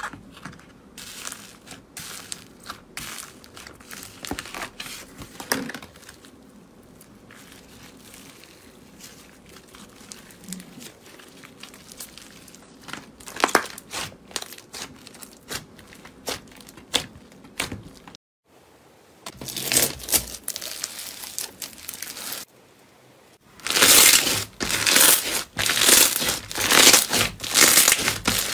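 Slime handled by hand: scattered crisp crackles and clicks from red foam-bead floam being pressed and poked, then, after a short gap, louder dense crackling and crunching from a fluffy white slime squeezed between the fingers near the end.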